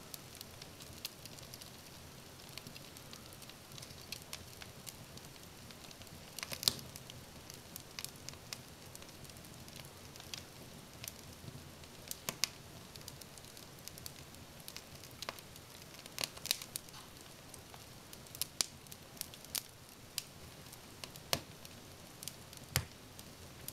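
Wood fire crackling in a Morsø 1126 cast-iron wood stove: irregular sharp pops and snaps over a low steady hiss.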